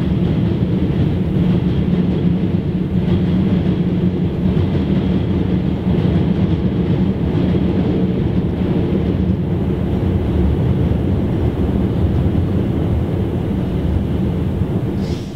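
Steady, loud rumble of an elevated subway train running on its tracks, dropping off suddenly just before the end.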